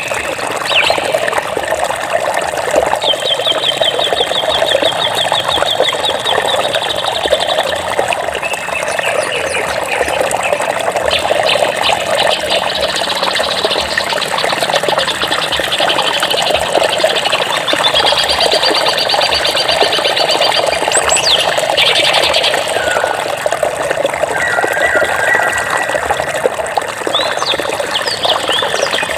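Steady flowing water with birds singing over it: several rapid trills and scattered short chirps.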